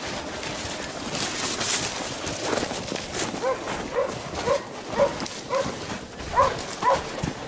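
Hunting dogs barking on a wild boar drive: about seven short barks, roughly two a second, starting about three seconds in. Before the barks there is rustling and crunching from someone pushing through snowy brush.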